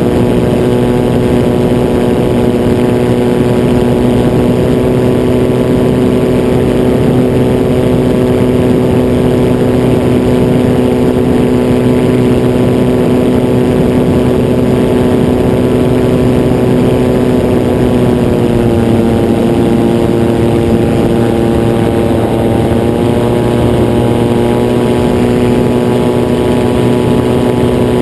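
Gyroplane's engine and propeller running steadily at cruise power in low flight, the engine note easing slightly lower about two-thirds of the way through and wavering a few seconds later.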